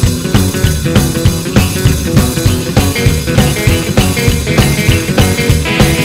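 Live rock-and-roll band playing an instrumental passage with a steady beat: upright double bass, drum kit and electric guitar.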